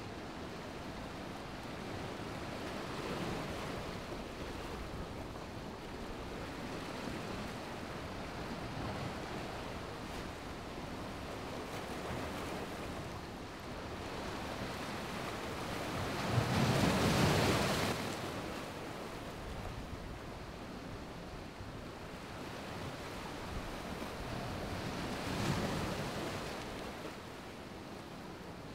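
Ocean surf washing over a shallow beach, with wind; the wash swells and fades, loudest about halfway through, with another smaller surge near the end.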